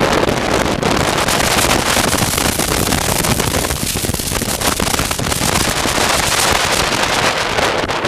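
Heavy wind rushing over a helmet-mounted camera's microphone on a moving motorcycle, steady and loud, with the motorcycle's engine running underneath.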